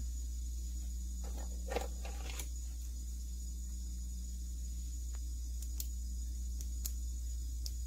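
Light metallic clicks and taps of AR-15 bolt carrier group parts being handled and taken apart by hand: a short cluster about a second and a half in, then a few single clicks later. A steady low electrical hum runs underneath.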